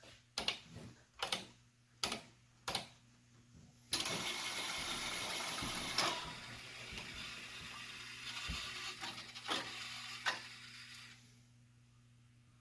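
Four short clicks of song-selection buttons on a Rowe CD51 CD jukebox, then its CD changer mechanism runs for about seven seconds, a steady whirring with a few clicks, as it fetches a disc for the Philips Pro Player, and stops suddenly.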